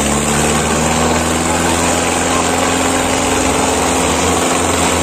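Mahindra tractor's diesel engine running hard under heavy pulling load. Its note rises slightly at the start, then holds steady.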